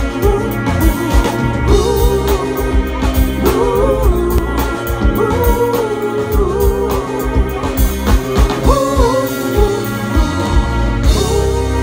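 Live band playing through a large outdoor PA: drum kit, keyboard and guitars, with a singing voice carrying a wavering melody over them. Near the end the drum hits fall away, leaving sustained keyboard chords.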